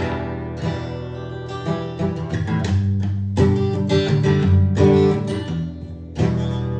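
Guitar playing chords: several chords struck and left to ring, with no voice.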